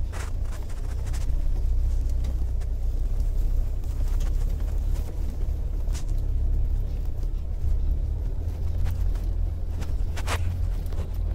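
Steady low rumble of a 4x4 driving on a packed-snow track, heard from inside the cabin, with a few sharp knocks, the loudest about ten seconds in.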